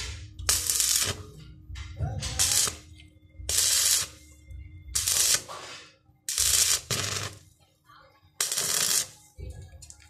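Stick (arc) welding rod crackling and sizzling in six short bursts about a second and a half apart, as ribbed rebar is tack-welded onto a steel channel; a faint steady hum runs underneath.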